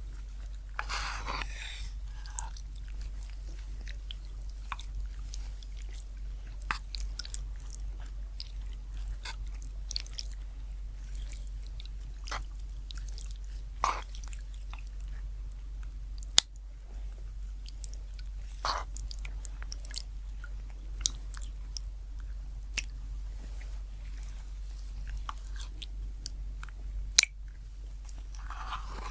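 Close-miked ASMR eating sounds: chewing and biting, heard as scattered sharp clicks and short crackles, a few louder snaps among them, over a steady low hum.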